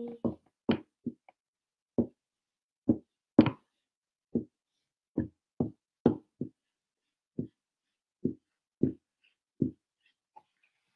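Dry-erase marker knocking against a whiteboard as letters are written: an irregular series of short knocks, stopping about a second before the end.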